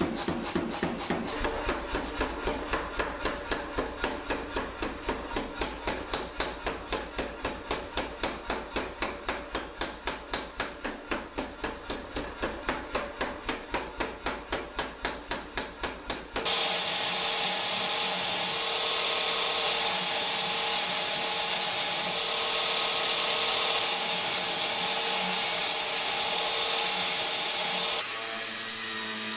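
Power hammer striking a hot Damascus steel billet in a steady run of about four blows a second as the blade is drawn out. About sixteen seconds in, this gives way suddenly to the steady grinding of a belt grinder on the steel. Near the end a quieter grinding sound takes over.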